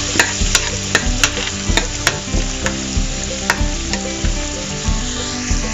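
Peanuts and urad dal sizzling steadily as they roast in hot oil in a stainless steel pan. A metal spoon stirring them clicks and scrapes against the pan about three times a second.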